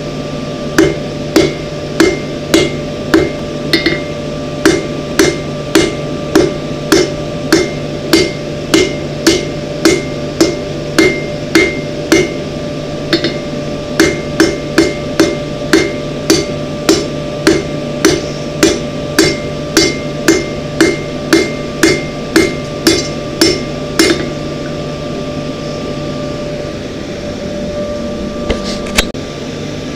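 Hand hammer striking red-hot steel bar stock on an anvil, about two blows a second, stopping about three-quarters of the way through; a steady hum runs underneath.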